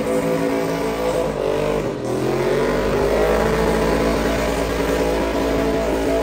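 Pickup truck's engine revving hard during a tyre-smoking burnout, held at high revs. Its pitch dips briefly about two seconds in, then climbs back up.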